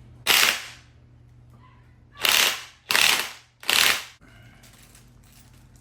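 A ratchet working a C-clamp ball joint press: four short ratcheting bursts, one near the start and three close together about two to four seconds in, pressing a lower ball joint.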